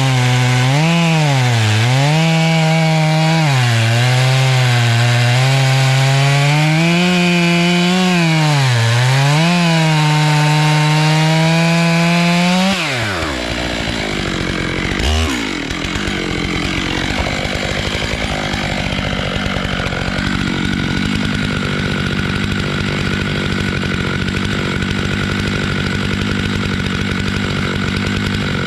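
Stihl MS 881 two-stroke chainsaw on an Alaskan mill, cutting through a black walnut log at high revs, its pitch repeatedly dipping under load and recovering. About 13 seconds in the throttle is released: the pitch falls and the saw settles to a lower, steadier idle.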